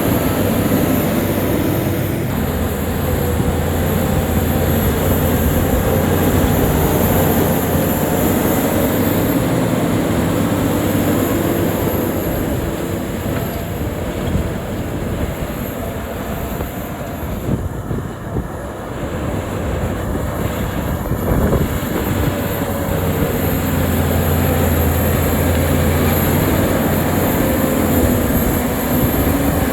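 Shantui crawler bulldozer at work, its diesel engine running steadily under load. It eases off for a few seconds around the middle, then picks up again.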